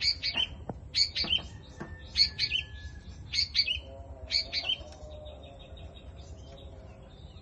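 Bird chirping in short bursts of high calls about once a second, then a quieter, steady buzzing trill in the last couple of seconds.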